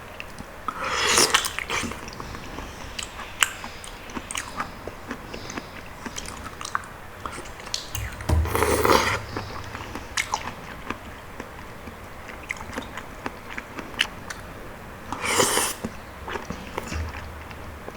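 Close-miked eating of soft, sticky palm fruit (sea coconut) flesh: wet chewing and mouth clicks, with three louder sounds under a second long, near the start, midway and near the end.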